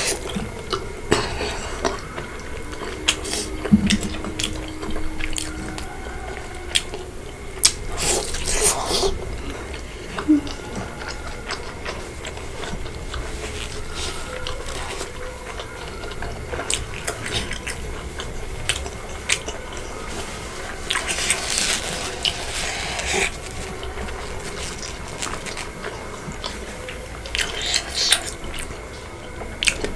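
Close-up eating sounds: wet chewing of pork curry and rice, with scattered clicks of a spoon or fingers against the plate and a few short noisy wet sounds.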